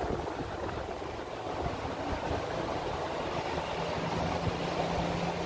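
Gusty wind buffeting the microphone, a steady low rumble. A faint steady hum joins about three and a half seconds in.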